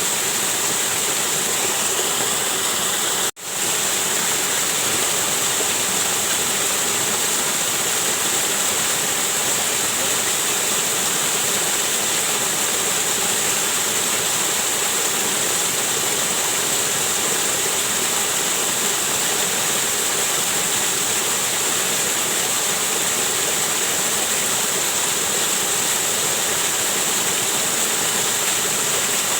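Waterfall rushing steadily, a dense unbroken roar of falling water. It cuts out for a split second about three seconds in and then carries on unchanged.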